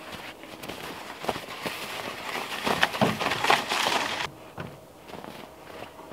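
Crunching and clattering close by as a loaded hand truck is wheeled over packed snow with footsteps alongside. It is loudest a little after three seconds in and cuts off abruptly after about four seconds.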